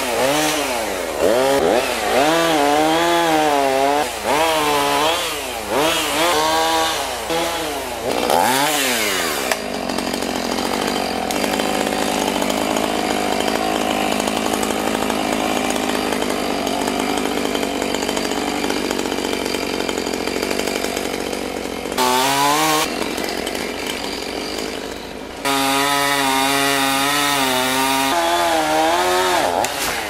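Small homeowner chainsaw with a 16-inch bar, revved up and down over and over for several seconds, then running steadily for about twelve seconds. Near the end it revs briefly and then holds a steady high run.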